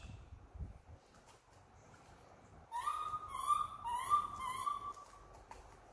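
Infant macaque cooing: a run of about four short, thin, whimpering coo calls a little before the middle, each rising briefly and then holding its pitch.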